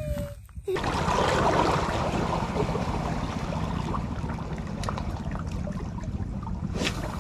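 Steady wash of shallow sea water with wind rumbling on the microphone, a few faint clicks through it and one brief sharp sound near the end.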